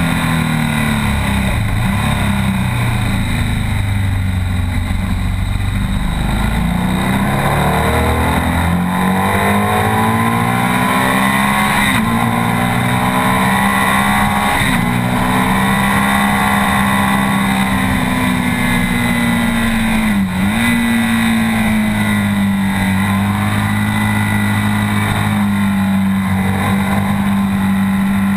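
BMW R 1200 S boxer-twin engine running hard at track speed, heard from the bike itself. Its pitch swoops down and back up several times in the first few seconds, then holds fairly steady, with one quick dip about twenty seconds in, as at a gearshift.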